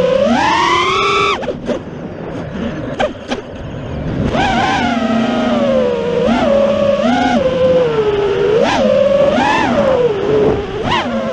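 FPV quadcopter's brushless motors and propellers whining, the pitch rising and falling with throttle. The whine drops away briefly about a second and a half in, comes back about four seconds in, and then jumps up in quick throttle punches several times.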